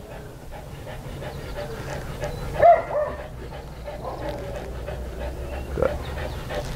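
Muzzled American Bulldog panting as it lies still, its breaths coming as a run of short quick strokes. A brief louder voice-like sound comes about three seconds in.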